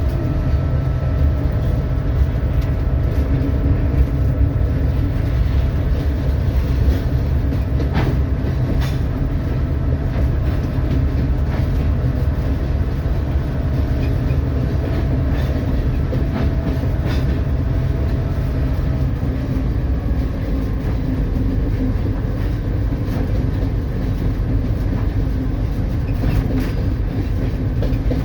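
Locomotive running under way with a ballast train, heard from inside its cab: a steady low engine rumble with occasional sharp clicks and knocks, and a faint steady whine that fades out about two-thirds of the way through.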